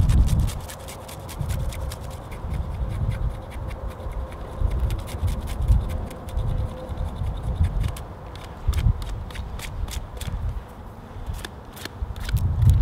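Folding camp knife blade shaving a wooden stick in a run of short scraping strokes, each cut with a soft thud and a dry click or crackle of wood.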